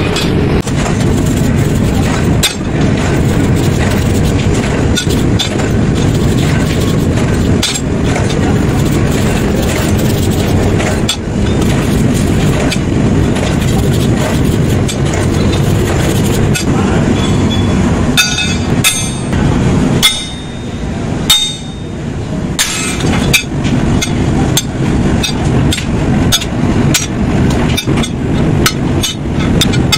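Metalworking din: a steady background rumble with repeated hammer strikes and clinks on steel during truck U-bolt making. The strikes come thicker and sharper from about two-thirds of the way in.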